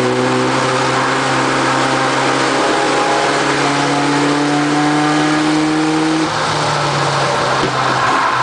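Engines of racing pickup trucks running hard as a pack passes. Several engine notes overlap, and one climbs steadily in pitch for a few seconds before dropping away about six seconds in.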